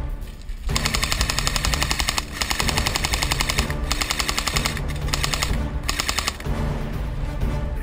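Airsoft rifle firing on full auto: a fast, even rattle of shots in long bursts, with brief pauses about two and a half and four and a half seconds in, stopping near the end.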